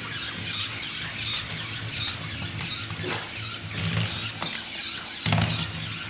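Remote-control toy skunk running on a hardwood floor, a steady whirring with squealing as a Boston Terrier bites and tugs at its tail.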